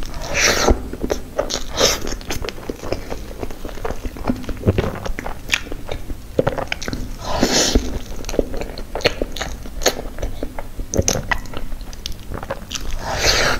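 Close-miked eating of soft cream-filled crepe cake: wet, sticky bites and chewing with a steady run of smacking mouth clicks, and a few longer noisy swells at the start, about halfway through and near the end.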